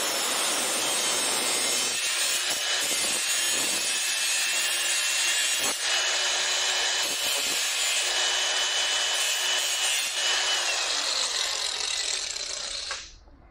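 Handheld power tool cutting a V-notch into camper corner trim, running steadily, then winding down and stopping near the end.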